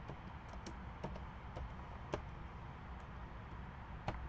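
Slow, sparse typing on a computer keyboard: about eight separate key clicks at irregular intervals, over a steady low background noise.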